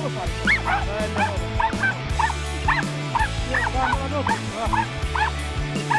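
Hunting dogs yelping and barking over a downed wild boar, about ten short, high yelps in the space of a few seconds, with background music carrying a steady bass line underneath.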